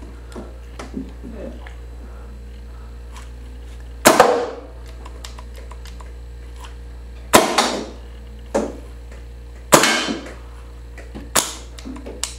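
Paintball marker firing reballs at a thin pane of glass: four loud sharp shots a couple of seconds apart, each with a short ringing decay, and a couple of fainter pops between them.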